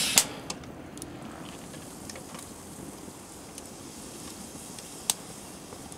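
Wood fire burning faintly under a mess tin of rice, a steady low hiss with sparse crackles and one sharper pop about five seconds in.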